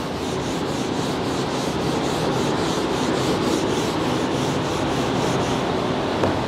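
Whiteboard marker rubbing across the board in writing strokes, over a steady rushing background noise.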